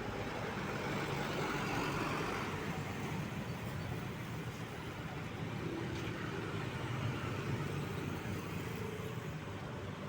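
Road traffic: vehicle engines running and tyres on the road, a steady rumble with no horn standing out.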